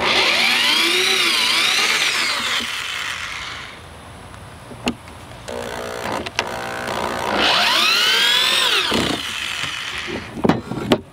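Corded electric drill backing deck screws partway out of a wooden frame joint. The motor whine slides up and down in pitch as the trigger is worked, in two long runs with a slower stretch between them. A few sharp knocks come near the end.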